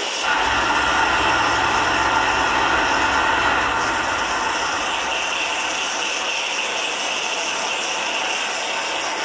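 Live improvised, looped music built from machine-like noises: a dense, steady ratcheting and grinding texture that evokes textile-mill machinery. A low hum sits under it for the first four seconds or so, then drops out.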